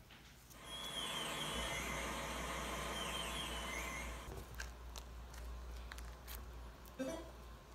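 Slime with foam beads mixed in being squeezed and kneaded by hand, crunching and squishing. It is loudest from about half a second in to about four seconds in, then turns quieter with a few small clicks.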